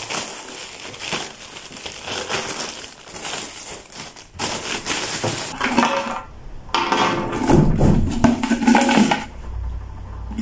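Clear plastic bag crinkling and tearing as a new plastic water bottle is unwrapped. Then, after a short pause, small hard plastic parts (the straw pieces and accessories) rattle and clink as they are tipped out of the bottle.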